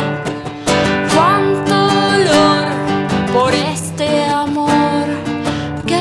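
A woman singing a melody over her own strummed acoustic guitar, holding some notes with vibrato and sliding up in pitch on others.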